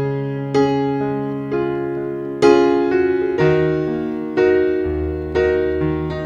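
Background piano music: soft keyboard chords, a new chord struck about once a second and left to fade.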